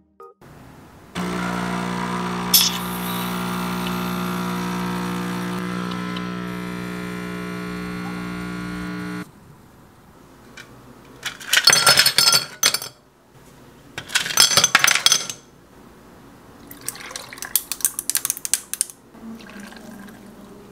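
Capsule espresso machine's pump running with a steady hum for about eight seconds while it brews a shot, then cutting off. After it, two short clattering bursts and a softer crackling follow: ice and liquid in a glass.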